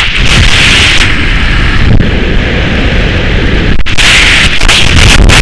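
Loud, uneven wind noise from the rushing air of a skydiving freefall hitting the camera microphone. It breaks for an instant near four seconds in.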